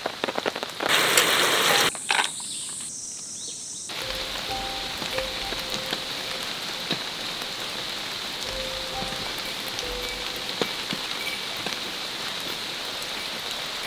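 Rain falling on a tarp and the forest around it, loudest in the first two seconds; from about four seconds in, a steady patter of rain with a few soft, sustained music notes over it.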